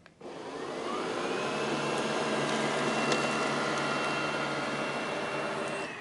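MOOKA robot vacuum running on carpet and picking up small debris. Its motor whine climbs over the first second and then holds steady over a hiss of suction, with a few faint ticks. Near the end the whine drops in pitch and fades.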